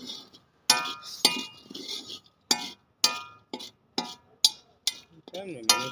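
A metal stirring rod clinking and scraping against a large iron kadhai as corn kernels are stirred through hot sand. The sharp strikes come about every half second, a few of them ringing. The kernels are not popping yet.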